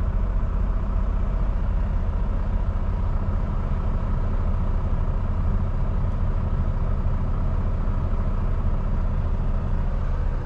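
Volvo semi truck's diesel engine running at low speed, a steady low rumble heard from inside the cab as the truck creeps across a lot.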